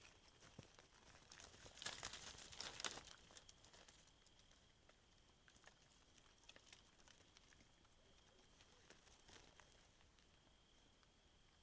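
Wild boar rustling and crackling in dry ground litter, a dense burst of quick crackles about two seconds in, then a few scattered clicks. Under it, quiet night ambience with a faint steady high tone.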